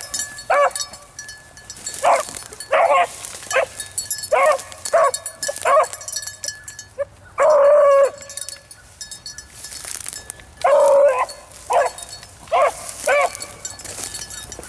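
A beagle baying on a rabbit's trail: a broken string of short yelps, with two longer drawn-out bawls about halfway through and a few seconds later.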